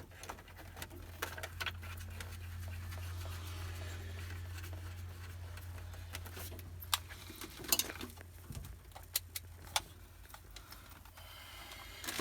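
Scattered small clicks and knocks as a tracking device and its wiring are handled and placed, over a steady low hum.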